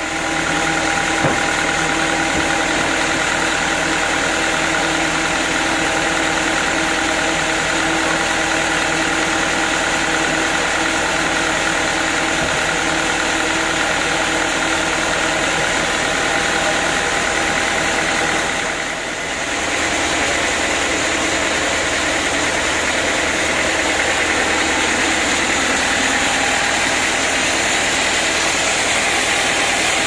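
Band sawmill running steadily, its motor and band blade turning with no cut being made. A single short knock comes about a second in.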